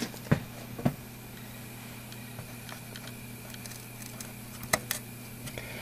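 Handling noise from fingers on a circuit board: a few short, sharp clicks and taps, two in the first second and two close together near the end, over a steady low hum.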